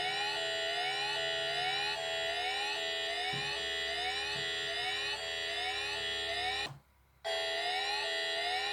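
Electronic emergency-alert alarm tone: several steady tones held together under a rising sweep that repeats a little more than once a second. About two-thirds of the way through it drops out for about half a second, then resumes.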